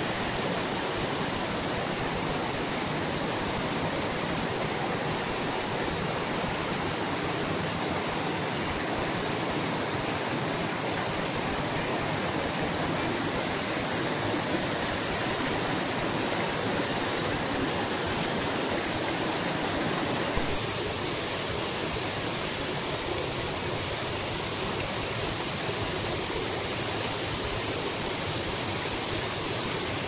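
Srambang waterfall and the rocky stream below it: a steady, even rush of falling and running water. The tone changes slightly about two-thirds of the way in.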